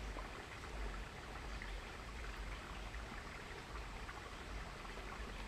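Steady rush and trickle of a small creek's flowing water.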